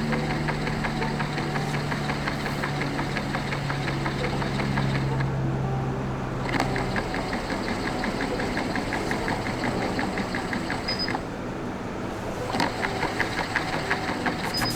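Magnetic stirrer running: a steady motor hum with a fast, regular ticking rattle. The hum stops about seven seconds in, while the ticking carries on.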